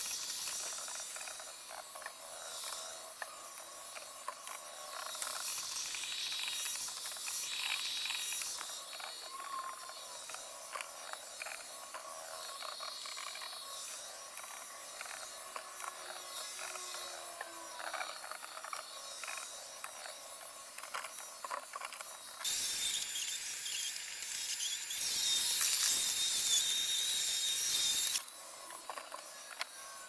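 Roomba 870 robot vacuum at work, its sound fast-forwarded into a rapid clatter of clicks over hiss. For about five seconds near the end the hiss grows louder, with a steady high whine.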